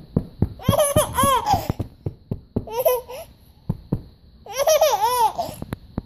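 Baby giggling in three bursts of quick, bouncing laughs, about a second in, around three seconds in, and again near the end.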